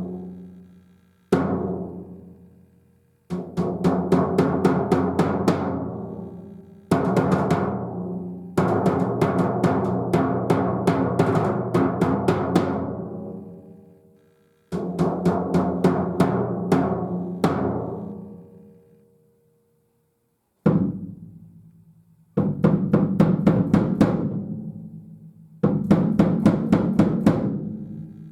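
TAMA Club-JAM Kit, a small-size lacquered drum kit with an 18-inch bass drum, being played. Phrases of rapid strokes on the drums are each left to ring out, with single hits and short pauses between them.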